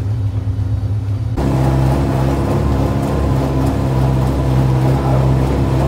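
A machine engine running steadily with a low hum. About a second and a half in it grows louder and a hiss joins it, as if the machine has come under load.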